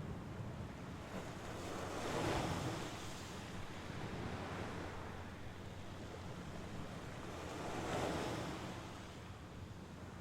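Mediterranean Sea waves washing onto the shore, two waves swelling and breaking about two seconds in and again near eight seconds, over a steady wash of surf.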